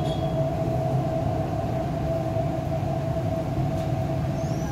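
MTR East Rail Line R-Train heard from inside the car at a platform: a steady mid-pitched whine over a low running rumble. Near the end the whine stops and a faint high squeal sets in.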